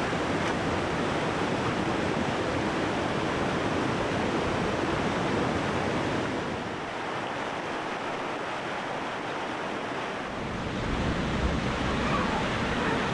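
Steady rushing of a river, a dense, even hiss of flowing water; a low wind rumble on the microphone joins near the end.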